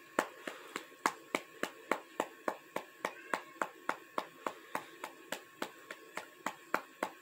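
An even run of sharp taps, about three and a half a second, keeping a steady beat throughout.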